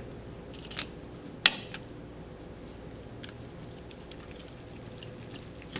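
Light metal clicks and taps of a steel piston cap being set onto a piston-cylinder assembly, the sharpest about a second and a half in, followed by a few faint ticks over a low steady hum.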